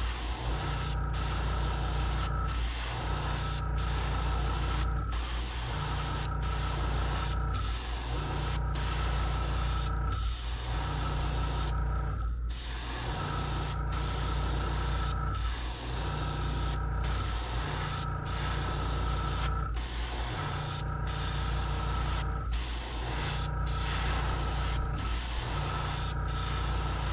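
Gravity-feed airbrush spraying paint with a steady hiss, cut by short breaks a little over once a second as the trigger is let off between passes, with one longer break about twelve seconds in. A steady low hum runs underneath.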